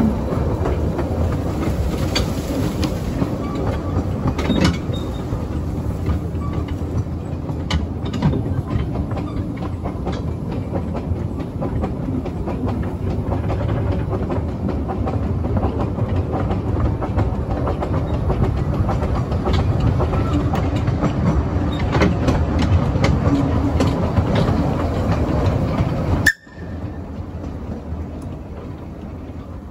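Ride behind the Kerr Stuart Wren 0-4-0 saddle-tank steam locomotive on a narrow-gauge track: a steady rumble of the train running, with frequent clicks of the wheels over the rail joints. Near the end the sound drops out suddenly and comes back quieter.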